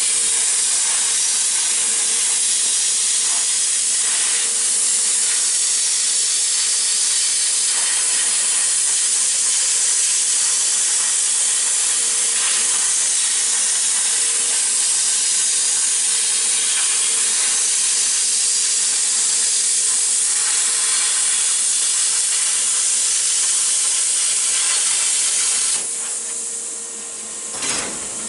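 Hand-held plasma cutter cutting 14-gauge sheet steel: a loud, steady hiss of the arc and air jet with a faint steady hum underneath. The hiss stops about 26 seconds in, leaving a few light knocks near the end.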